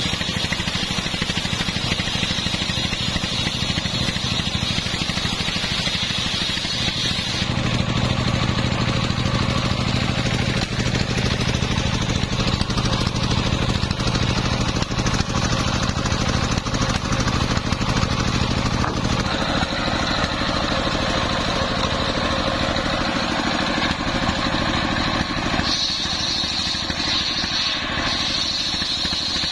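Belt-driven circular sawmill running, its stationary engine droning steadily while the large blade rips coconut-palm (glugu) timber. A high, steady whine sits over the drone for the first several seconds and returns near the end.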